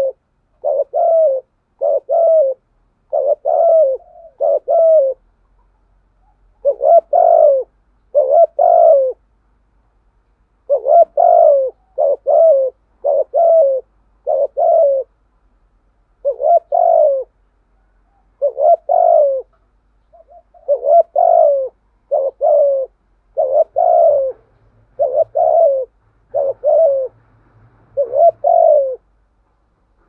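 Spotted dove cooing in a long series of short coos, one to two a second, with brief pauses about five and ten seconds in. This is the driving 'thúc gù' coo that keepers use to provoke wild doves.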